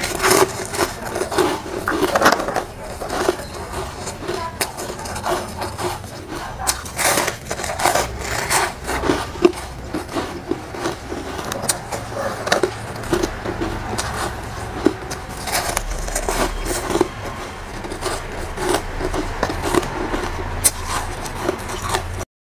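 Soft, powdery frozen ice chunks being bitten and chewed: a run of irregular crisp crunches.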